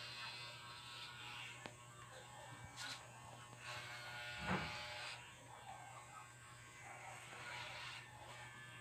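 Corded electric hair clippers buzzing steadily as they cut short hair, the sound of the cutting changing as the blades move over the head. A brief knock about halfway through.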